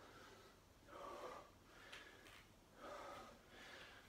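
A man's faint, heavy breathing from exertion, with an exhale about once a second.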